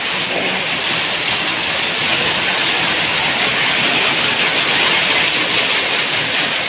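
Loud, steady din of powerloom weaving machinery running, an even mechanical noise without pauses.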